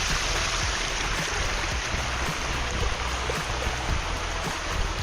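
Running water: a steady, even rush.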